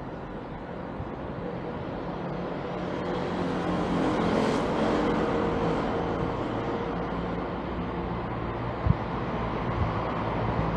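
Road traffic: a vehicle engine running steadily, with a vehicle passing about four seconds in and a short knock near the end.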